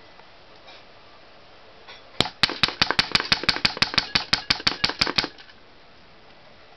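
Air-powered airsoft Masada rifle with a full-solenoid firing unit shooting a full-auto burst of about twenty sharp, evenly spaced shots, roughly seven a second. The burst starts about two seconds in and lasts about three seconds.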